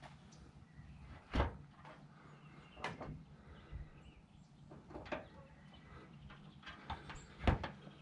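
The classic Mini's steel boot lid being unlatched, swung open and shut again. It gives a few sharp clunks and knocks, with the heaviest thud about a second and a half in and another near the end.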